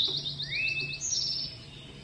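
Small songbirds singing: a fast trill of short high notes, a single rising whistled note about half a second in, then a quicker, higher trill a little after a second in.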